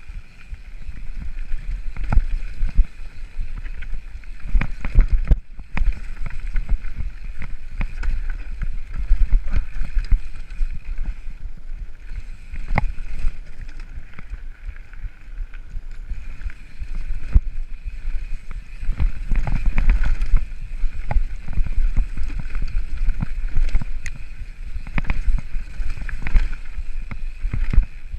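Mountain bike descending a rocky trail: tyres rolling over loose stones, with constant rattling and sharp clacks from the bike jolting over bumps and wind buffeting the camera microphone.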